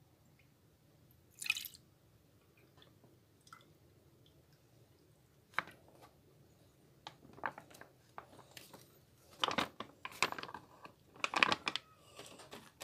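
Plastic milk pouch handled and squeezed while milk pours and splashes into a mug: scattered crinkles and small liquid sounds, sparse at first and busier in the second half.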